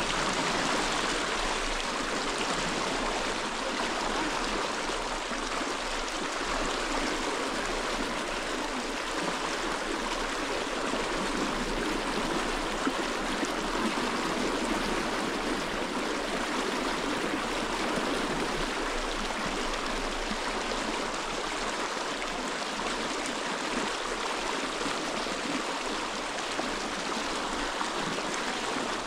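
Shallow mountain stream rushing over rocks, a steady, even splash and rush of water.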